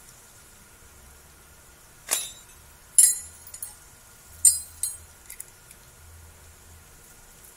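Sharp metal clinks, as of metal parts and tools knocking together: one strike about two seconds in, two louder ones about a second and two and a half seconds later, then a few lighter clinks.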